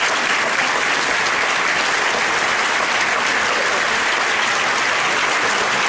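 Audience applauding steadily: dense, sustained clapping.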